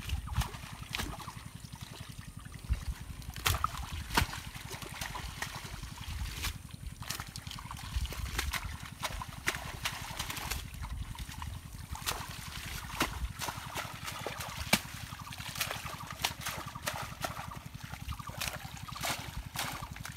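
Water sloshing and trickling as a net is worked through dense water hyacinth by people wading in a pond, with frequent sharp clicks and rustles from the plants and a low rumble underneath.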